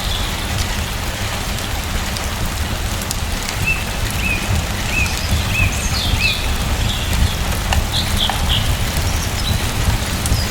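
Steady rain falling, with a low rumble underneath. A small bird chirps a run of about six short, evenly spaced notes in the middle, with a few higher calls around it.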